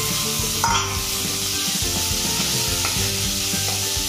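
Sliced onions sizzling in a little hot oil in a kadai, stirred with a spatula.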